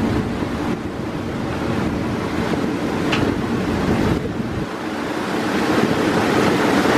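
AGE-30 diesel locomotive running at speed, heard from inside the cab: steady engine and wheel-on-rail rumble with wind rushing past the cab window. A brief high squeal about three seconds in.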